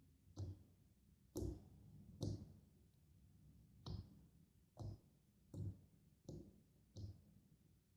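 Quiet, irregular tapping: about eight short clicks or knocks, roughly one a second.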